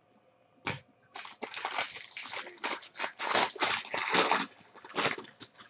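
Clear plastic wrapper of a trading-card pack crinkling in the hands, a dense run of rapid crackles lasting about three and a half seconds, with a short crinkle just before and another near the end.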